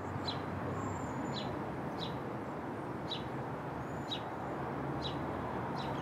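A bird giving short, high, downward chirps about once a second over a steady low rumble of outdoor background noise.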